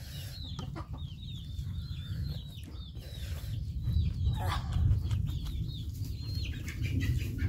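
Chickens calling: a quick run of short, high calls, several a second, dense for the first three seconds and sparser after. Under them sit a steady low rumble and the small wet clicks and smacks of curry being eaten by hand.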